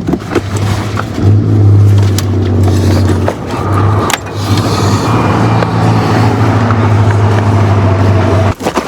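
Van engine running at low speed while the van is driven and turned around, a steady low hum with a few short dips, stopping abruptly near the end.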